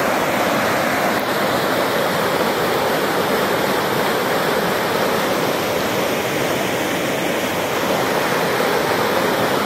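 Shallow, fast river rushing over stones in small rapids: a steady, even roar of white water.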